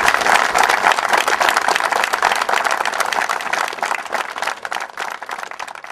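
Crowd applauding, loud at first, then thinning out and dying away near the end.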